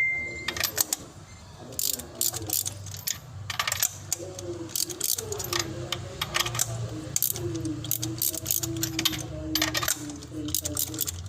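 Repeated sharp metallic clinks and taps of hand tools on engine parts, over a steady low engine hum.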